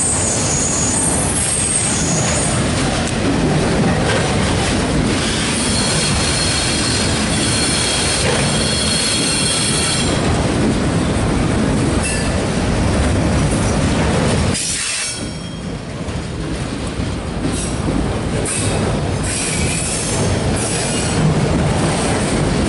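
Autorack freight cars rolling past close by, their steel wheels rumbling on the rails. High wheel squeal comes and goes, strongest from about five to ten seconds in and again in patches near the end. There is a short dip in the noise around the middle.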